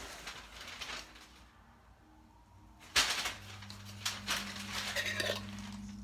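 Metal screw-top lid being twisted off a glass candle jar: a sharp click about three seconds in, then metal scraping against the glass.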